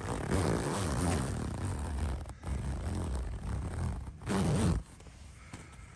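Tent door zipper being pulled open by hand: two long drawn-out pulls with a brief break between, then a short, quicker pull about four seconds in.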